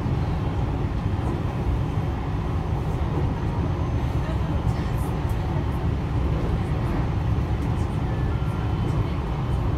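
Electric train running along the line, heard from inside at the front cab window: a steady low rumble of wheels on rail and running gear, with a few faint ticks around the middle.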